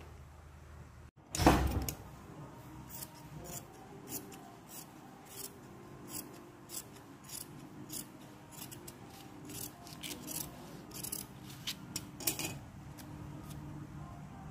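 Dressmaking scissors cutting fabric along a pinned paper pattern: a run of short, crisp snips, one every half second or so, that stops shortly before the end. About a second in there is a single loud knock, the loudest sound here.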